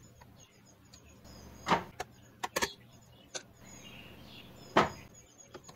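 Screwdriver clicking and knocking against the plastic print-head carriage of an Epson L3116 inkjet printer as the head's mounting screws are undone: a handful of sharp clicks, the loudest about two seconds in and near the end.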